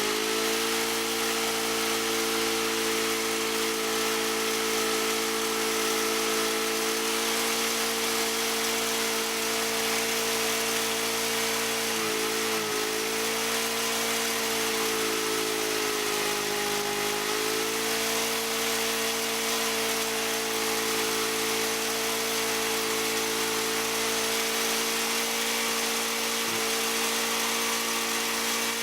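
Wood chipper/shredder's small gasoline engine running steadily at high speed, with brief dips in pitch about 12 and 17 seconds in. It runs evenly, its carburetor jet screw backed off just a hair.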